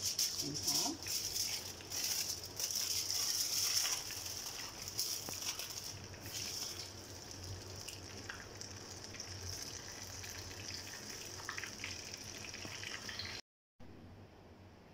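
Crinkling and rustling of aluminium foil handled while a filled tortilla wrap is wrapped by hand, as dense irregular crackles that are busiest in the first few seconds and then thin to a softer rustle. Near the end it cuts to a much quieter hiss.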